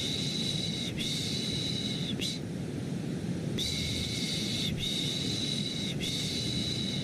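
A person's 'shh' shushing sound, repeated in runs of three long shushes, each run ending with a short one, with a pause of about a second between runs. Underneath is steady, low-pitched white noise used to lull a baby to sleep.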